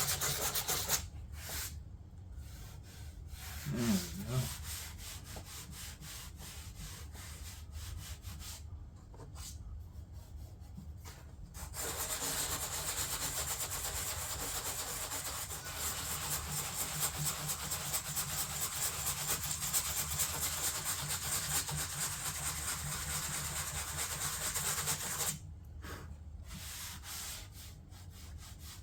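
Abrasive sanding on a fiberglass-and-filler door panel, a rough scratchy rasping that goes on throughout. It is softer for the first several seconds, grows louder and busier about twelve seconds in, and eases off again a few seconds before the end.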